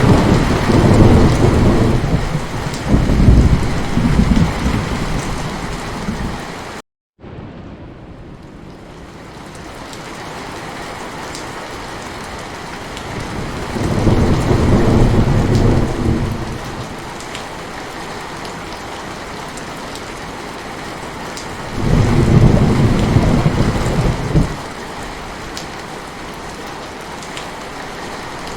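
Heavy rain falling steadily, with rolling thunder rumbling three times: at the start, about halfway through, and a few seconds before the end. About seven seconds in the sound cuts out for a split second, and the rain comes back quieter.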